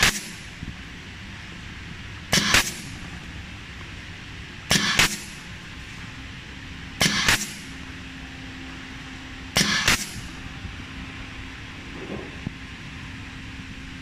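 Vertical pneumatic wire stripping machine cycling about every two and a half seconds. Each stroke gives two short, sharp bursts about a third of a second apart as the air valve fires and the stripping blocks close and open, five strokes in all. A faint steady hum comes in partway through.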